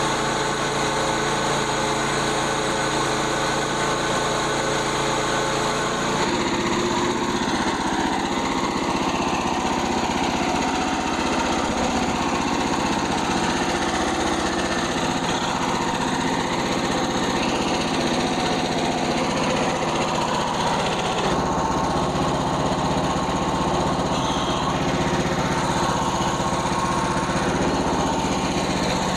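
Engine running steadily, its note shifting about six seconds in and again about two-thirds of the way through, as a change in load or throttle would cause. The recording is distorted.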